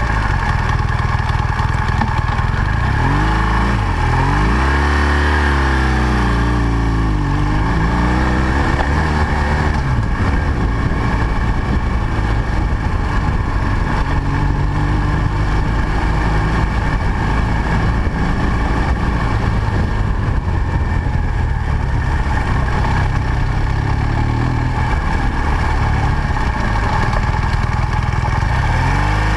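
BMW R1200 GS boxer-twin engine heard from on board while riding, over a steady rush of wind and tyres on gravel. Its pitch rises and falls a few seconds in as the throttle is opened and closed, then holds fairly steady and starts to rise again at the very end.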